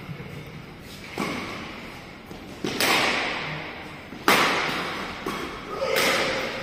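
Badminton rackets striking the shuttlecock in a doubles rally: four sharp hits about a second and a half apart, each echoing in a large indoor hall.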